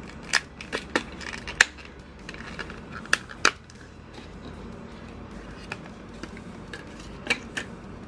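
Handling noise: several sharp clicks and taps of small hard objects, the loudest about one and a half seconds in, with two more near the end.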